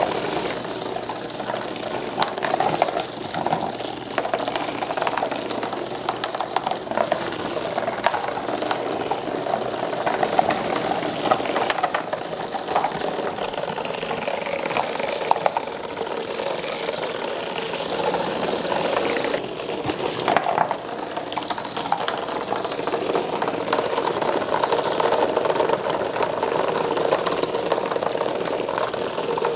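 Several small battery-powered robotic bug toys buzzing and rattling steadily as they skitter over the cardboard floor of a box, with frequent light ticks as they knock against its walls and each other.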